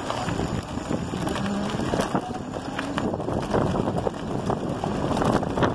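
Electric bike's tyres rolling over a loose gravel road, a steady crunching rush with small stones ticking, mixed with wind on the microphone.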